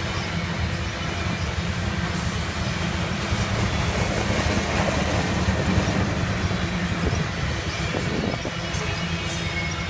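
Covered hopper cars of a freight grain train rolling past: a steady rumble of wheels on rail, with occasional clicks.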